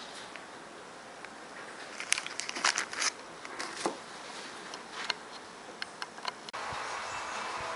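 Clear plastic bag crinkling and crackling with scattered sharp clicks as the packaged item is handled and set down on a table. About six and a half seconds in, this gives way abruptly to a steady hiss with a faint hum.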